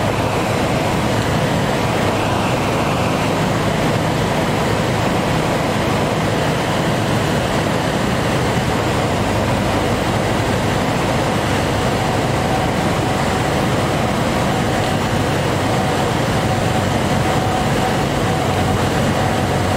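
Cessna 310 cabin noise on final approach: twin piston engines and propellers running steadily, with a steady hum under a rushing airflow hiss. A higher tone joins in about halfway through.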